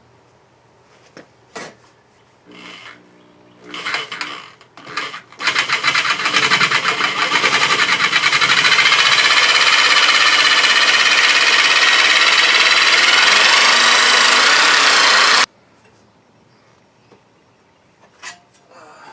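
A power tool cutting sheet steel for a patch panel runs steadily with a fast, even chatter for about ten seconds, then stops abruptly. Before it, there are a few light clicks and scrapes of the metal being handled.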